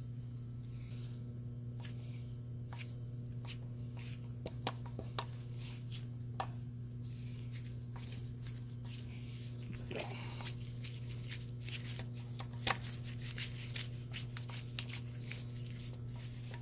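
Scattered small metallic clicks and scrapes of a screw being driven by screwdriver into a punched hole in a gearbox detent cap, a few ticks sharper than the rest, over a steady low hum.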